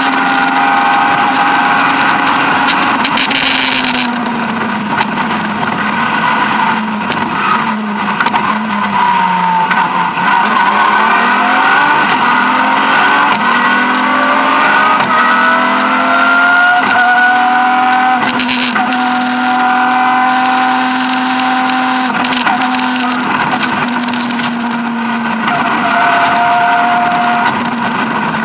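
BMW E36 M3 rally car's straight-six engine at racing speed, heard from inside the cabin over road and tyre noise. Its pitch drops about nine seconds in, then climbs over several seconds as it accelerates away, holding high and fairly steady after that.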